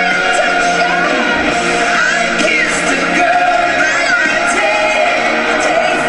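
Loud live pop music with singing over it and some shouts and whoops.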